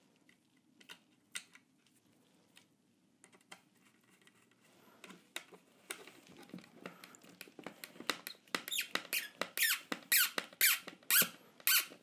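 Small screw being turned with a hex key into a 3D-printed plastic display frame: a few scattered clicks at first, then from about halfway a quick run of squeaks and creaks that grows louder toward the end.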